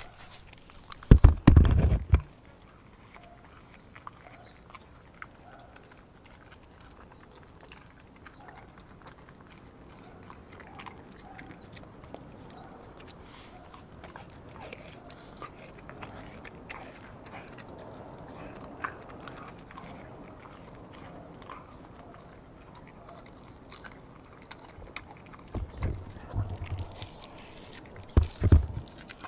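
A dog chewing and licking raw meat: wet smacking and small clicks of teeth, broken by a few heavy low thumps about a second in and again near the end.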